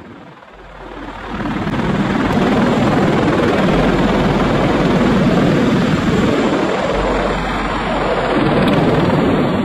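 Helicopter rotor and engine noise, a dense steady din with a low rumble, building up over the first couple of seconds and then running loud and even.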